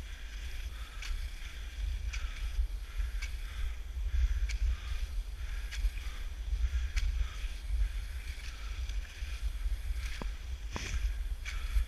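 Classic cross-country skis swishing along groomed tracks in a stride rhythm of about one swish a second, with a few sharp clicks of ski-pole tips planting, the clearest near the end. A steady low wind rumble on the microphone lies underneath.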